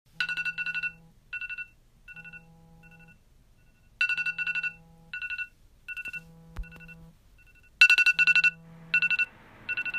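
iPhone alarm ringing: clusters of fast, high-pitched beeps, repeating every couple of seconds. Under them is a low buzz, about a second long, every two seconds.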